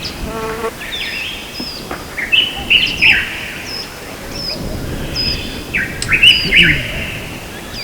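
Several songbirds chirping and singing at once, with quick, overlapping whistled notes and trills. A brief lower-pitched call comes about half a second in.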